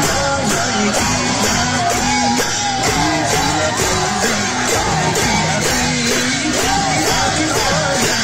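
Sakela dance music: pairs of brass hand cymbals clashed in a steady beat, about three strokes a second, under a crowd singing and yelling.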